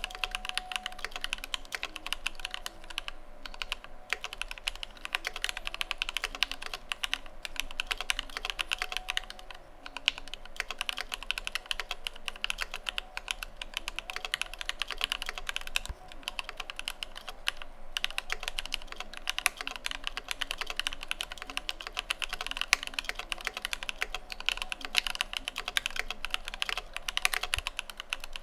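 Fast, continuous typing on an Idobao ID80 v1 mechanical keyboard with linear Alpaca V2 switches lubed with GHv4 and PBT cherry-profile keycaps: a dense run of keystrokes, pausing briefly three times.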